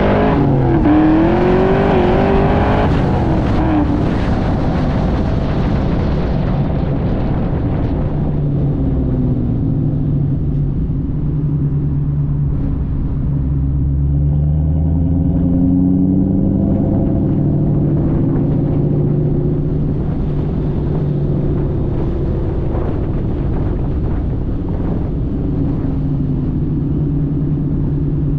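2003 Mustang SVT Cobra's supercharged 4.6-litre V8 running through long-tube headers, an off-road X-pipe and a Bassani cat-back exhaust, heard from outside the moving car. The revs rise and fall quickly in the first few seconds, then settle to a steady low exhaust note that climbs and drops slowly in pitch as the car cruises.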